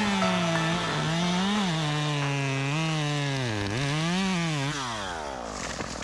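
A small gasoline engine revving, its pitch rising and dipping several times, then winding down and fading out near the end.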